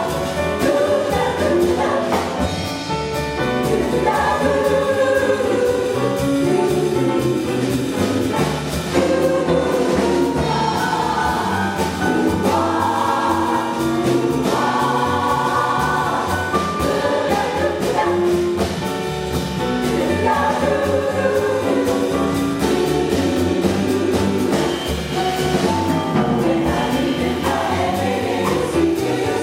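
Jazz chorus singing in close harmony, accompanied by piano, upright bass, drums and saxophone.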